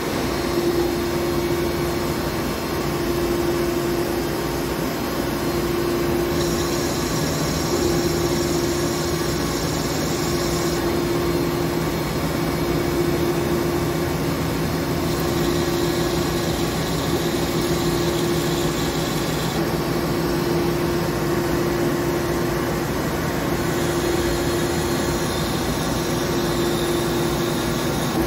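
Heavy CNC lathe running while it turns a steel roll shaft: a steady hum at one pitch. A higher hiss comes in three times, for about four seconds each.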